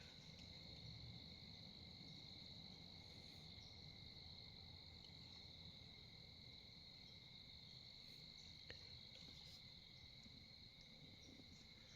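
Faint, steady cricket chorus: a continuous high trill with a fainter, lower one beneath it. A single faint click about two-thirds of the way through.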